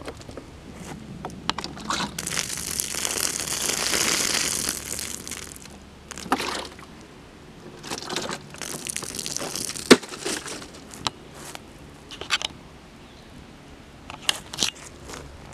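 Plastic milk jug being handled over dry leaf litter: crinkling plastic and rustling leaves in irregular spells, with a sharp knock about ten seconds in.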